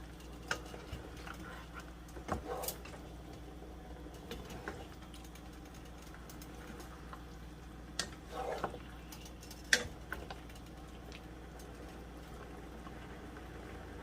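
Pot of bottle gourd and pork simmering quietly, with a few scattered light clicks and knocks of kitchen utensils, the sharpest about ten seconds in.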